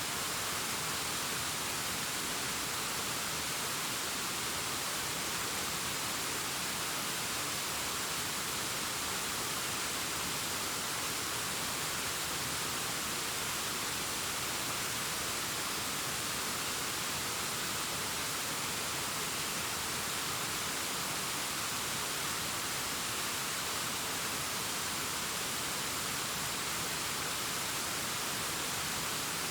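Distant waterfall cascading down a rockface: a steady, unchanging rush of falling water, with more hiss than rumble.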